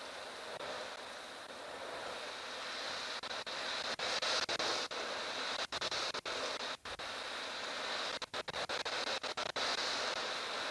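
Strong wind blowing across the microphone in a dust storm: a steady rushing hiss that swells about four seconds in, then cuts out briefly again and again.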